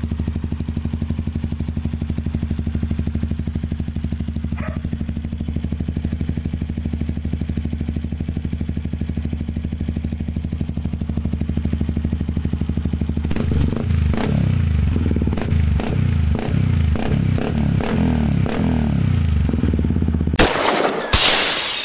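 Yamaha WR155R's 155 cc single-cylinder engine idling steadily through an aftermarket Norifumi exhaust. From about two-thirds of the way in it is blipped repeatedly with quick throttle revs. Near the end the engine sound cuts off and a loud crashing burst begins.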